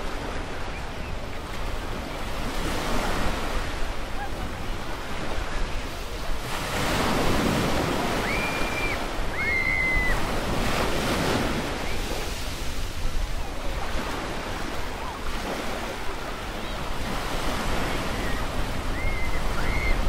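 Waves washing onto a beach in slow swells, louder about a third of the way in and again around halfway, under a steady rush of wind. A few short high whistled notes sound around halfway and again near the end.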